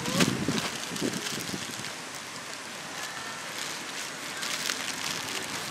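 Plastic packaging rustling and crinkling in scattered bursts as a taped parcel is cut open with a utility knife, over a steady outdoor hiss.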